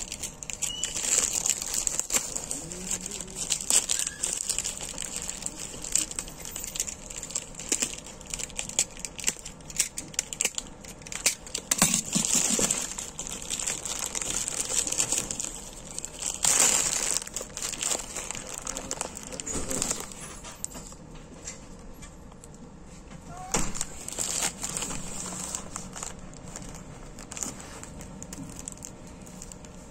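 Plastic courier mailer bag being torn open by hand and its plastic wrapping crumpled, making irregular crinkling and crackling in uneven bursts that thin out over the last several seconds.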